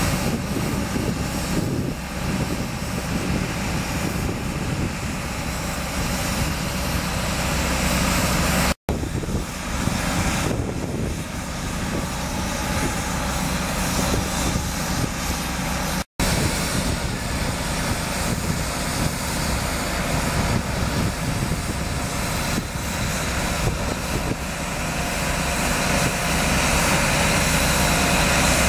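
Drilling rig of a rail-mounted foundation-setting train running, boring in mast foundations: a steady, dense mechanical drone of engine and drill. It breaks off twice for a split second.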